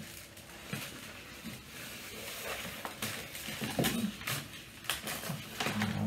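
Scattered light clicks and paper crinkling from a box of Whitman's assorted chocolates being handled and picked through.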